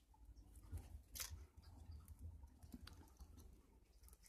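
Faint small clicks and ticks of needle-nose pliers and copper wire against a potentiometer's metal lug as the wire is wrapped around it, one sharper click about a second in, over a low background hum.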